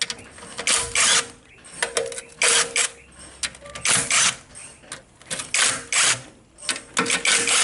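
Cordless impact driver hammering in short bursts, about eight of them, each under half a second, as it breaks loose the bolts on a hybrid inverter cover one after another. The bolts are only being slackened, not run out.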